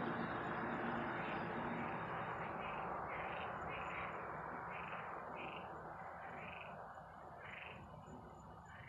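Distant rumble of a SpaceX Falcon Heavy rocket climbing away, fading steadily. From about a second in, short high chirping calls from night creatures repeat roughly twice a second above it.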